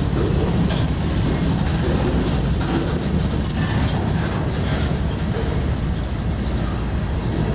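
Freight train of loaded flatcars rolling past close by: a steady rumble of steel wheels on rail, with scattered clicks and clanks.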